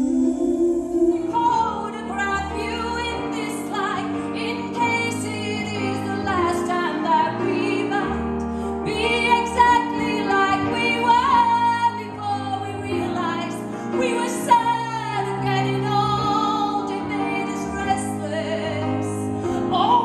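Operatic female singing with vibrato over a steady instrumental accompaniment.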